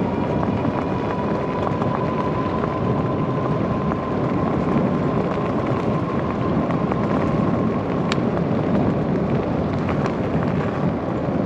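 Electric mobility scooter rolling along an asphalt runway: a steady rumble of tyres and wind on the microphone, with a thin steady whine that fades out about eight seconds in.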